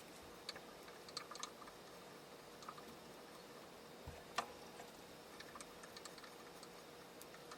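Faint, scattered light clicks and taps, with one sharper knock about four seconds in, over a steady faint hum.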